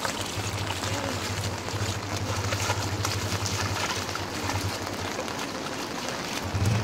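Steady rushing hiss of water in a flooded landscape, with a low hum underneath that drops out about five seconds in and returns near the end.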